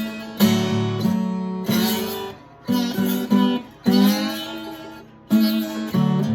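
2001 Washburn dreadnought acoustic guitar played with a slide, stepping through a harmonized scale in D. Chords are plucked one after another, about eight in all, each left to ring and fade before the next.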